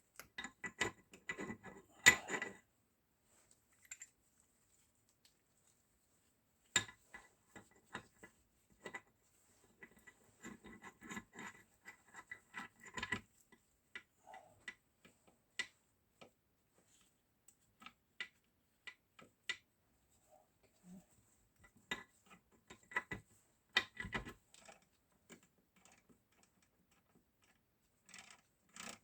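Scattered metallic clicks, clinks and light knocks as Zundapp KS 600 gearbox parts and tools are handled and fitted together during reassembly. They come in clusters with quiet gaps between, and the sharpest knock is about two seconds in.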